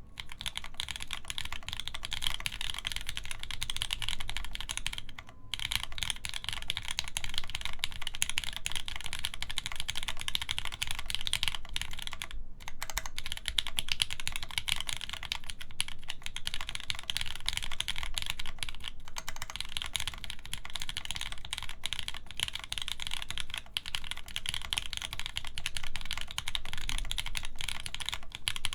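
Fast continuous typing on a mechanical keyboard with lubed linear Gateron Yellow switches in milky housings, an FR4 plate and GMK doubleshot keycaps: a dense run of clacky keystrokes, with brief pauses about five and twelve seconds in.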